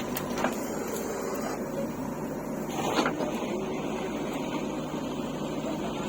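Diesel engine of heavy machinery running steadily, with a brief knock about three seconds in.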